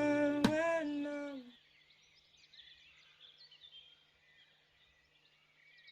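The song's last plucked guitar note and held notes dip and fade out in the first second and a half, leaving faint birdsong: small birds chirping softly until it cuts off near the end.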